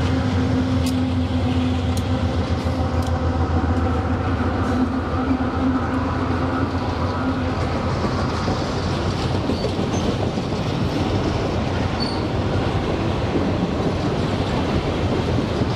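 Freight train hopper wagons rolling past: a steady rumble of steel wheels on the rails. A low steady hum fades out about halfway through, with a few clicks near the start and brief faint high squeaks later on.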